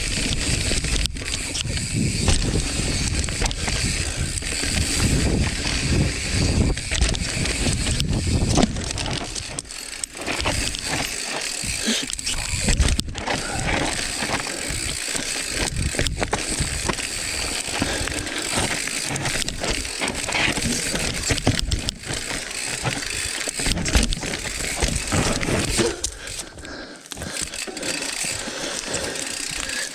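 Mountain bike descending a loose dirt trail: tyres rolling and skidding over dirt and rock, with frequent sharp knocks and rattles from the bike and wind rushing over the microphone.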